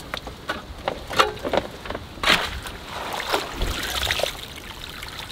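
Graip (garden fork) digging into wet wood chip and tossing it into an old bathtub: irregular scrapes, rustles and knocks of the tines and chips.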